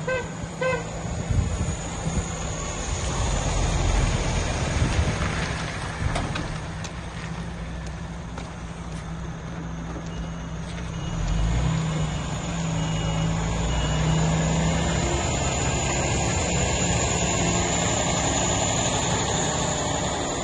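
MAN TGX 26.480 tractor unit's 12.4-litre straight-six diesel running at low speed as the truck drives slowly about; the engine note climbs for a few seconds about halfway through as it pulls harder.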